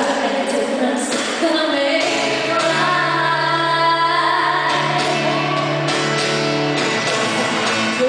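Live pop singing with band accompaniment, amplified through the sound system of a large arena, with long held notes in the middle.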